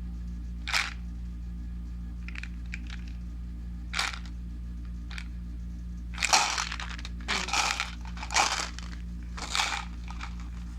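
Homemade plastic sensory bottles being handled and shaken, crinkling and rattling in several short, separate bursts.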